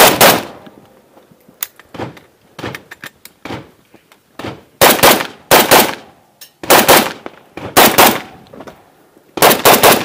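AK-74 rifle (5.45×39 mm) fired in quick double taps at practical-shooting targets: one shot at the start, then after a lull with a few faint clicks, five pairs of shots about a third of a second apart over the second half.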